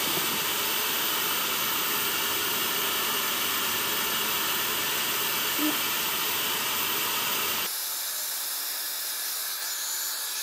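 Heat gun blowing a steady hiss of hot air into a drill press gearbox casting, drying out the damp, porous casting after degreasing. About three-quarters of the way through, the sound drops abruptly to a quieter, thinner hiss.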